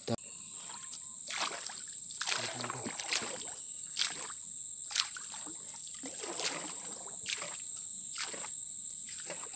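Paddle strokes of a small wooden canoe swishing through still swamp water, about one a second. A steady high whine runs underneath.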